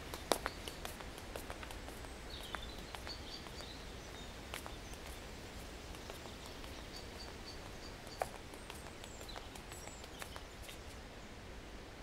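Faint outdoor background noise with a few distant bird chirps in short runs and scattered light clicks.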